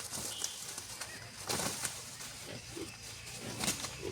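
Chickens clucking with short low calls, with a couple of brief scratchy noises.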